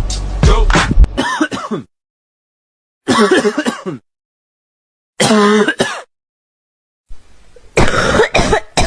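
A run of short, separate recordings of a person coughing and clearing the throat, each under a second long and cut apart by complete silence, some with a pitched, vocal tone. Music cuts off about a second in.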